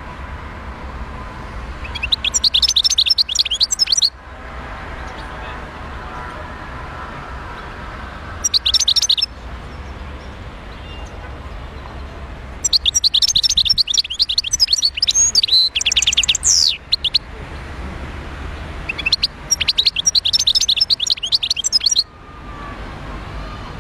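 Wild-caught European goldfinch singing in four bursts of rapid, high twittering notes, the longest phrase in the middle, over a steady low background hum.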